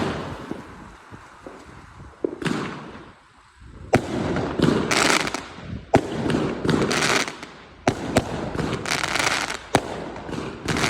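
New Year fireworks going off: sharp bangs about every two seconds, each followed by a spell of crackling.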